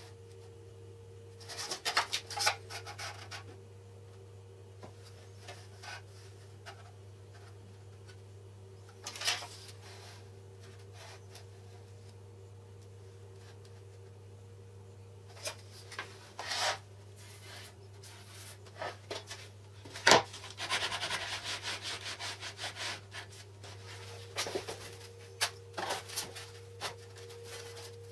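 Hands sliding and setting down a clear acrylic template and an aluminium slat on a laminate board: scattered rubs, light knocks and scrapes. About twenty seconds in there is a sharp knock, then a few seconds of continuous rubbing. A steady low hum runs underneath.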